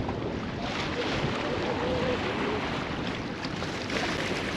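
Wind buffeting the microphone over water rushing past the hull of a sailboat under way, a steady noise with no clear events.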